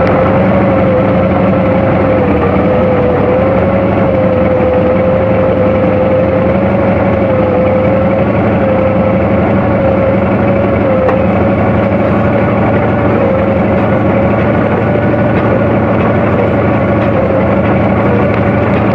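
Kamov Ka-26 helicopter's twin nine-cylinder radial piston engines and coaxial rotors running steadily and loud, with a strong whine that wavers slightly in pitch.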